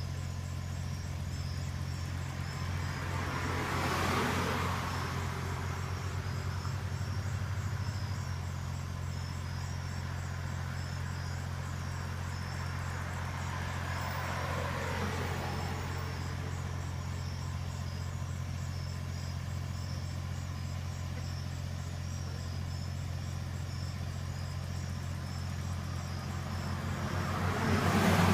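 Cars driving past on a road, each one swelling up and fading away, three times: about four seconds in, around fifteen seconds, and loudest at the end. A steady low hum runs underneath.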